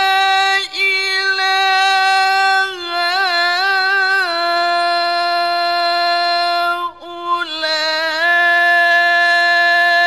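A man's solo voice in ornamented, sung Quran recitation (tilawah), holding a long high note with wavering melismatic turns. The voice breaks off briefly about a second in and again about seven seconds in, settling a little lower in pitch after each turn.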